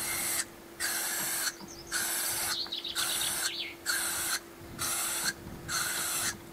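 Aerosol can of black 700 °C heat-resistant paint spraying in short hissing bursts, about one a second.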